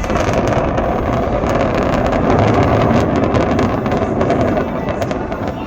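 Building implosion: a dense run of sharp cracking blasts over a continuous heavy rumble as the demolition charges fire and the Tropicana hotel tower comes down. It swells about two to three seconds in and eases toward the end.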